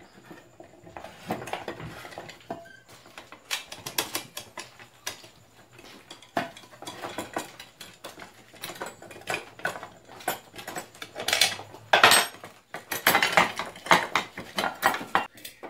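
Steel spanner on a nut of an aluminium pressure-cooker lid, worked in short turns: a run of irregular metallic clicks, clinks and scrapes, thickest and loudest over the last few seconds.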